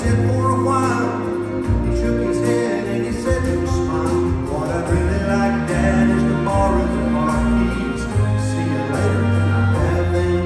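Live bluegrass band with an orchestra playing a slow ballad: banjo, acoustic guitars, mandolin and fiddle over orchestral strings, with singing.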